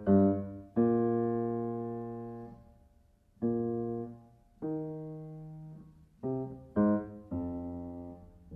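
Slow solo piano music: chords struck one at a time and left to ring and fade, with a long chord about a second in dying away over about two seconds.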